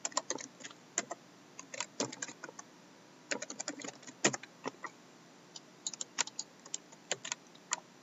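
Typing on a computer keyboard: short irregular bursts of key clicks with brief pauses between them.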